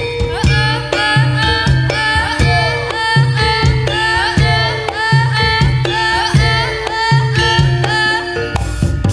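Reog Kendang music: hand drums (kendang) beating a repeated, even pattern of deep strokes under a wailing reed-trumpet (slompret) melody that slides between notes, with a bright crash near the end.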